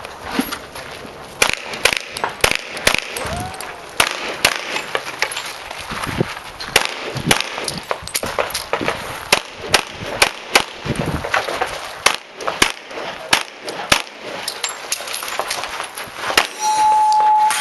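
Handgun shots fired in quick irregular strings during a practical-shooting stage, some with a metallic clang of steel targets being hit. Near the end comes a steady electronic beep lasting about a second.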